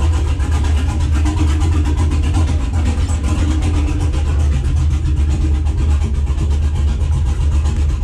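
6.0-litre LS V8 engine idling steadily, now firing on all eight cylinders after three injectors that were not injecting were replaced.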